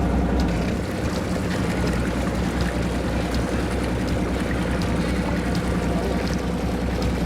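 Fishing boat's engine running at a steady drone, with water rushing and splashing against the hull.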